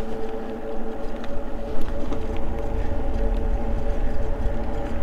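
Electric bike's hub motor whining steadily with several even tones while cruising at about 12 mph, with wind rumbling on the microphone and a few light clicks.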